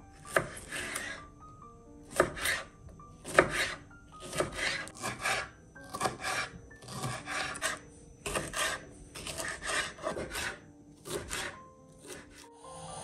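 Chef's knife slicing through a green bell pepper and striking a wooden cutting board: crisp crunchy cuts, one or two a second, each ending in a knock on the wood.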